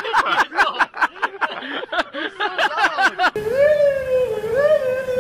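Excited voices laughing and shouting in rapid bursts. About three seconds in they cut off abruptly and give way to a long, wavering, pitched tone that holds steady in loudness.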